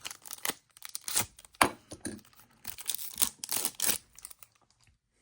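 Foil trading card pack wrapper being torn open and crinkled by hand, an irregular run of sharp crackles and rustles that stops about four and a half seconds in.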